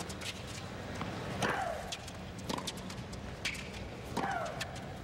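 Tennis rally: the ball is struck back and forth about once a second, each stroke a sharp hit, and on every other stroke one player gives a long, falling shriek.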